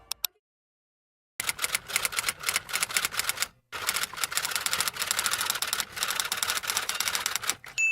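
Fast typing on keys: two clicks, a second of silence, then a dense run of key clicks for about two seconds, a brief break, and another four seconds of clicking.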